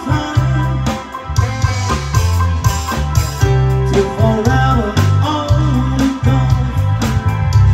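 Live band music: female voices singing a pop melody over electric guitar, bass guitar, drum kit and keyboard.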